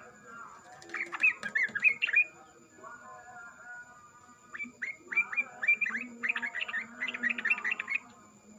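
Yellow-vented and sooty-headed bulbuls singing: a quick burst of bubbly chirping notes about a second in, then a longer run of rapid, repeated notes from about four and a half seconds until near the end.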